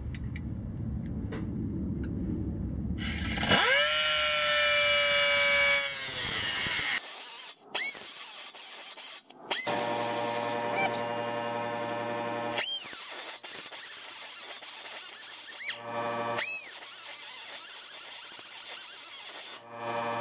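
Pneumatic cut-off wheel tool spinning up with a rising whine a few seconds in, after a low rumble, then running at speed in several stretches broken by sudden cuts, its pitch briefly dipping and recovering.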